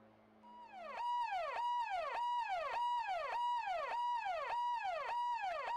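Police siren sound effect: a tone that holds high, then drops, over and over, a little less than twice a second, starting about half a second in.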